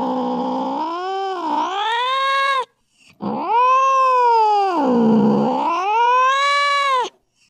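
A cat yowling: two long drawn-out calls, each sliding down in pitch and rising again, separated by a brief pause about three seconds in.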